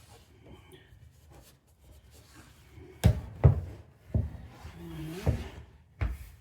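Handling and wiping noises from a loose headlight assembly being worked on: about five hard knocks in the second half, with rubbing between them and a short squeak about five seconds in.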